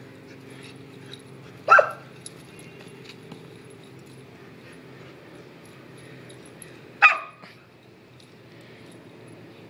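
Samoyed puppy barking: two single barks, the first about two seconds in and the second about five seconds later.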